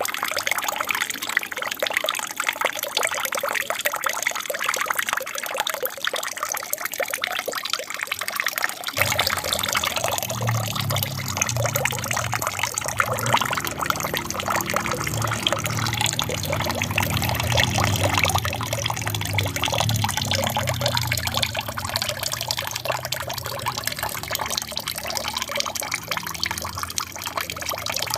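Water trickling and splashing down a small aquarium waterfall, a steady stream of running water. About nine seconds in, a low rumble joins it and continues.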